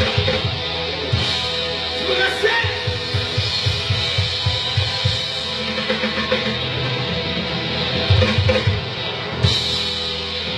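Rock band playing, with a drum kit and loud electric guitars.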